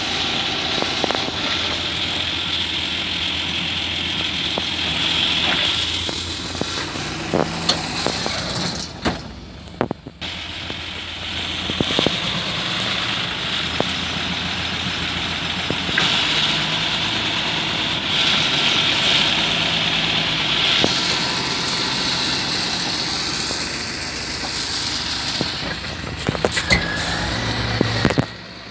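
Diesel farm tractor engines running steadily at a maize silage pile, a John Deere 6930 close by, while chopped maize spills from a tipping trailer onto the heap.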